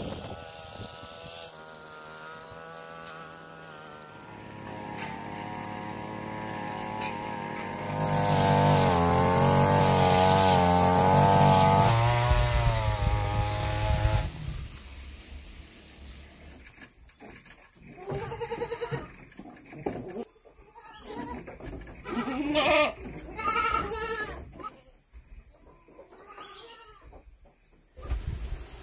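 Goats bleating. For about the first half a long drone with slowly wavering pitch runs under them and stops fairly abruptly; in the second half come separate short bleats over a steady high whine.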